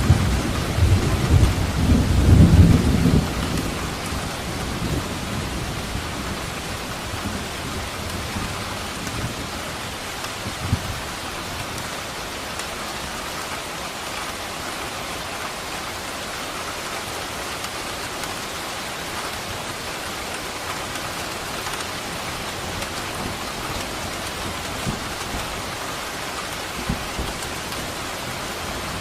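Steady rain with a loud rolling rumble of thunder in the first few seconds that fades out. Then rain alone, with a couple of faint low thuds of distant thunder later on.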